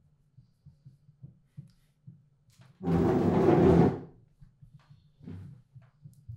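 A wooden chair dragged across a hard kitchen floor, one loud scrape lasting about a second midway through, followed by a softer knock a second later. A faint low pulse repeats underneath.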